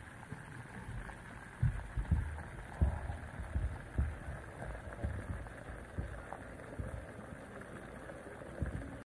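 Irregular muffled low thumps and knocks over a steady hiss, heard through a waterproof camera case submerged in liquid. The sound cuts off abruptly near the end.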